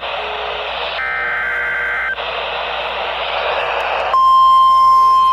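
Emergency Alert System SAME header: two short bursts of warbling two-tone digital data, separated by radio hiss. About four seconds in, the steady 1050 Hz NOAA Weather Radio warning alarm tone starts and is the loudest sound, announcing a warning.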